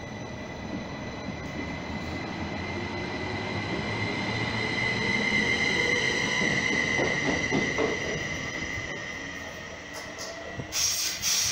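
A train passing through a station: a rumble that swells to a peak about halfway through and then fades, with a high steady whine over it. A short loud burst of hiss comes near the end.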